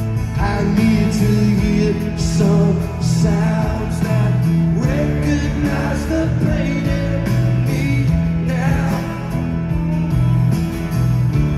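Live band music: strummed acoustic guitar with electric guitar and a steady beat, and a male voice singing over it.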